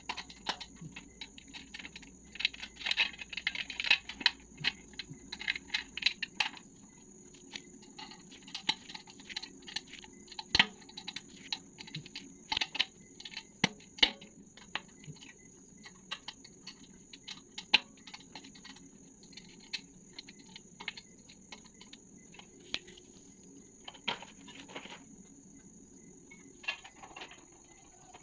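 Irregular small metal clicks, taps and scrapes as a bolt is turned by hand into the metal base frame of a standing mirror, busiest in the first few seconds.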